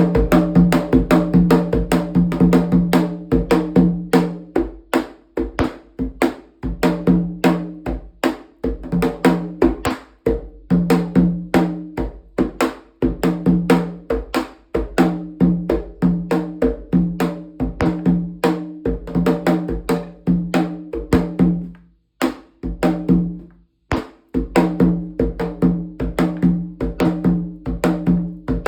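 Rum atabaque, a tall hand-built conga-like drum with a 26.5 cm goatskin head, played in the agueré rhythm of candomblé ketu: a fast, continuous run of sharp strikes over a steady low drum tone, with two brief pauses near the end.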